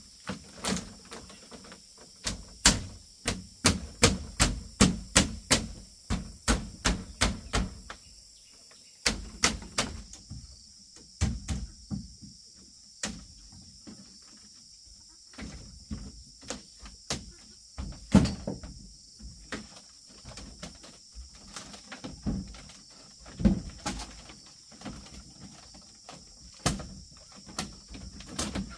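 Hand-tool blows knocking on wood, a quick run of about two to three strikes a second for several seconds, then scattered single knocks. Insects drone steadily and high-pitched throughout.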